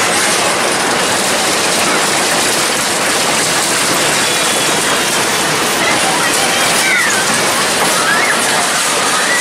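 Steady, loud rushing din of a carnival midway, with a few short high curving sounds, like children's squeals, about seven to nine seconds in.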